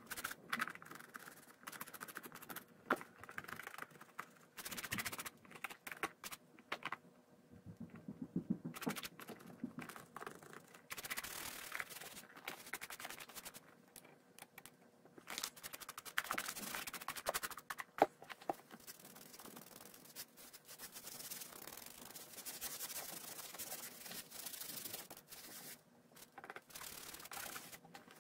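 Scratchy scrubbing and rubbing on a leather riding boot, in uneven strokes with short pauses, and one sharp tap past the middle.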